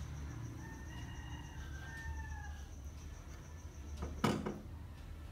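A rooster crowing, one drawn-out call of about two seconds, then a single sharp knock about four seconds in.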